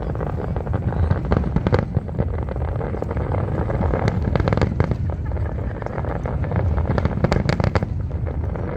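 Fireworks going off in quick succession, rapid crackling pops that come thickest about four to five seconds in and again about seven to eight seconds in, over a steady low rumble.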